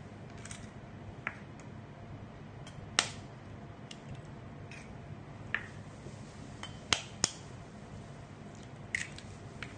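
Eggs being cracked into a ceramic bowl: a few sharp, separate knocks of eggshell against the rim, the loudest about three seconds in and a quick pair a little before the end.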